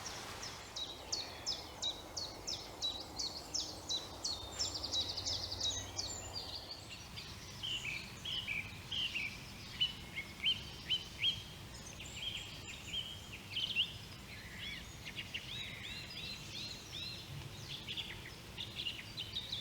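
Wild songbirds singing and chirping, many quick high notes and short trills following one another without a break. A faint low rumble sits underneath for the first several seconds.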